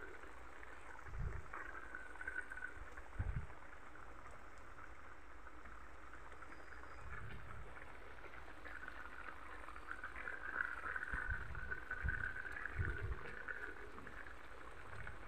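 Beef stew bubbling at a simmer in a wok, the bubbling busier for a few seconds about ten seconds in, with a few dull low thumps.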